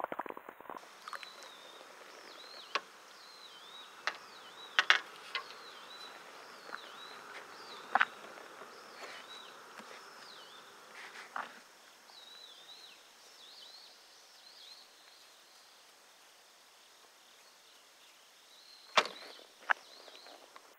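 Repeated high, wavering chirps from small wild creatures, ending about fifteen seconds in, with a handful of sharp clicks and knocks scattered through.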